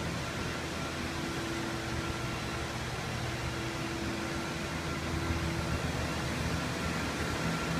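Steady fan or blower hum with a constant whooshing noise, a few steady hum tones running through it.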